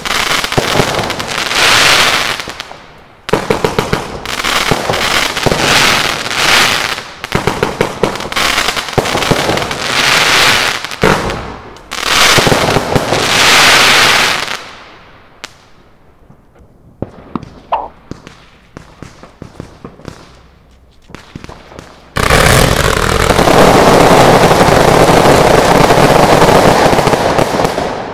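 Consumer fireworks batteries firing: several loud volleys of rapid shots and bursts, then a sparser stretch of scattered pops. About 22 seconds in, a dense continuous crackle starts and fades near the end.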